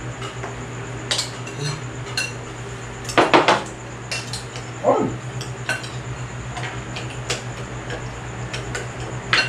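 Spoons and forks clinking and scraping against ceramic bowls as several people eat noodle soup. The clinks are scattered, with the loudest clatter about three seconds in.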